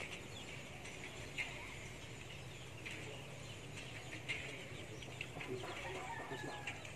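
Chicken clucking faintly, a few short calls spaced about a second and a half apart.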